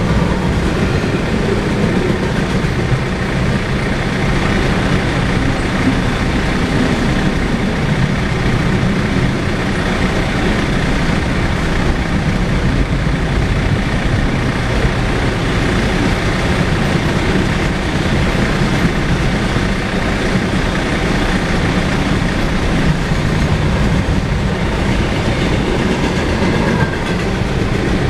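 Intermodal freight cars of a long train rolling past at speed: a steady, loud rumble of steel wheels on rail with clatter over the joints.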